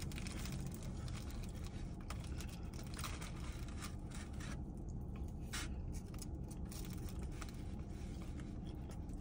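Quiet sounds of someone eating from a takeout container: faint scraping and crinkling, with a few small clicks about two, three and five and a half seconds in, over a steady low hum.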